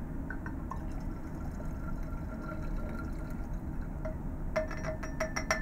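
Reagent mixture tipped from a small vial into a glass Erlenmeyer flask, pouring and dripping, with a quick run of sharp ringing ticks against the glass in the last second or so.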